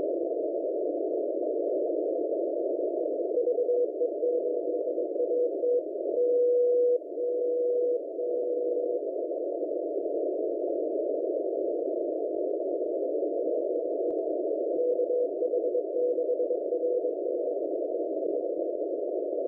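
Shortwave static heard through a narrow CW filter, with Morse code from the 18.110 MHz International Beacon Project beacons VE8AT and KH6RS. A clear tone keys a quick run of dots and dashes and then longer dashes from about three seconds in, and a fainter keyed signal comes through near the end.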